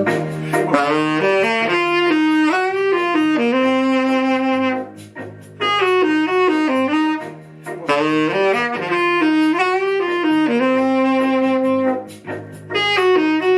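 Instrumental interlude of a song: a reedy lead melody over a held bass line, the same phrase played twice.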